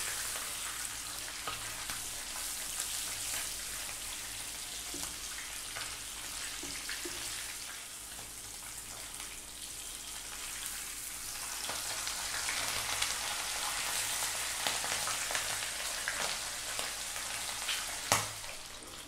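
Whole sea bream shallow-frying in hot sunflower oil in a frying pan: a steady sizzle of bubbling oil. The sizzle grows brighter about two-thirds of the way through, when the fish is turned with a spatula, and there is a single click near the end.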